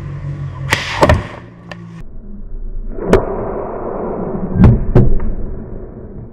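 Sling shooting with 3D-printed projectiles aimed at a plywood target: sharp snaps and knocks, a close pair about a second in, then three more, the loudest near the end, over a steady rushing background.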